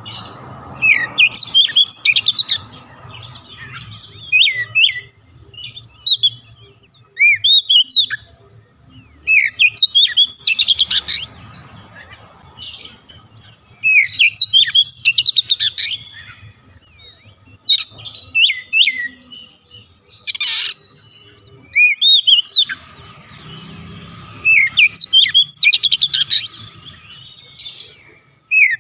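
Oriental magpie-robin (kacer) singing: about ten loud bursts of varied whistles, chirps and fast trills, each a second or two long, with short pauses between them.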